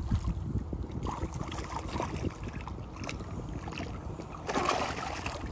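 Water splashing and sloshing as a hooked small shark thrashes at the surface beside the boat, with a louder splash of about half a second near the end. Wind rumble on the microphone runs underneath.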